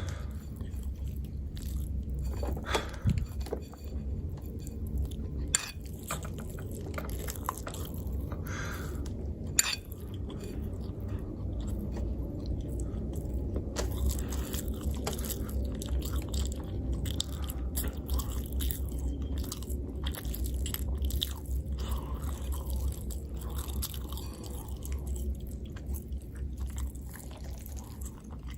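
Close-miked chewing and biting of food, with irregular sharp mouth clicks and occasional crunchy bites over a steady low hum.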